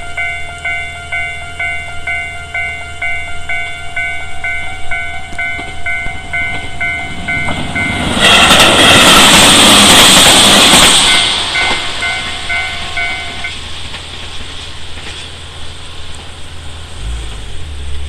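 Japanese railway level-crossing warning bell ringing in a rapid, even repeating ding. About eight seconds in, an electric commuter train passes loudly for about three seconds. The bell rings on for a couple of seconds after the train and then stops.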